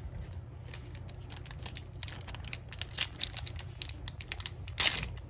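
Plastic wrapper of a 2022 Donruss Baseball card pack crinkling in the hands and being torn open, with a louder tear near the end.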